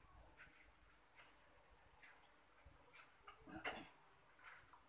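Crickets chirping in a steady, high-pitched pulsing trill, faint, with a few soft scuffs, the clearest about three and a half seconds in.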